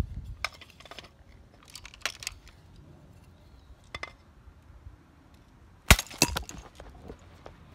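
A spring airsoft gun is fired once at point-blank range into a clay pigeon. A sharp crack comes about six seconds in, followed by a few light clinks of clay chipping. Scattered small clicks of handling come before it.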